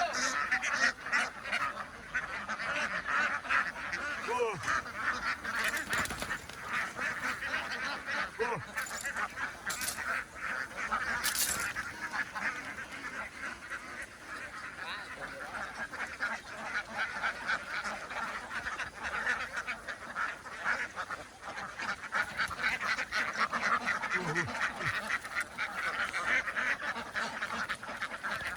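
A large flock of domestic ducks quacking continuously, many birds calling over one another in a dense, unbroken chatter.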